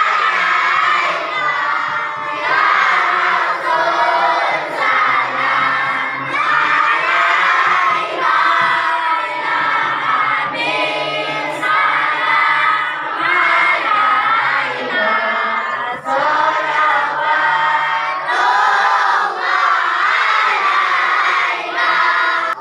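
Shalawat, devotional praise of the Prophet Muhammad, sung together by a large crowd of schoolchildren and adults, led by a woman singing into a microphone.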